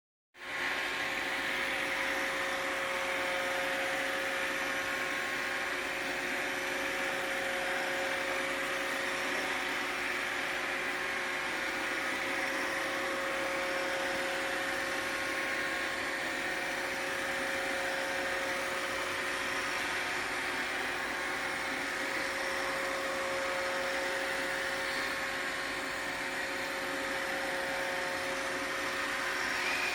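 Roomba robot vacuum running: a steady motor whir with one constant tone, unchanging throughout.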